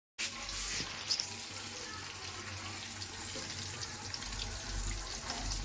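Paneer cubes frying gently in oil in a steel kadhai, a steady sizzling hiss, with a couple of sharp clicks about a second in.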